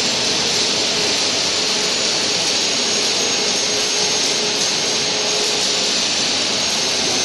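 Steady rushing hiss with a faint high whine held over it: machinery and air noise around a CNC plasma gantry cutter that is standing idle, with no torch lit and no cut under way.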